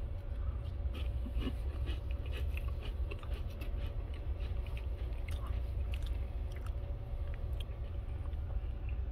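Close-up chewing and crunching of a cracker topped with baked brie, a run of small crackly clicks that thins out towards the end, over a steady low hum.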